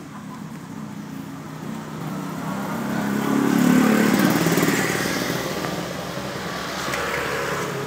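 A motor vehicle passing by, its engine getting louder to a peak about halfway through and then fading.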